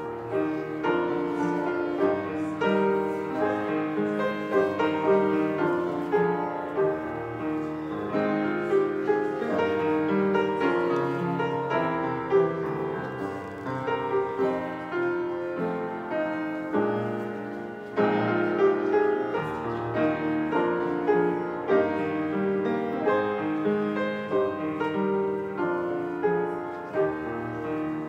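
Upright piano played solo, a continuous flow of melody and chords, with a brief lift of the hands about two-thirds of the way through before playing resumes.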